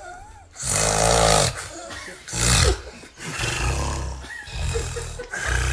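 Loud, rough human snoring: a long snore about half a second in, a short one midway, then a longer drawn-out one through the second half.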